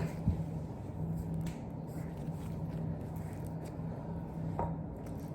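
Quiet room tone with a steady low hum and a few faint, soft clicks.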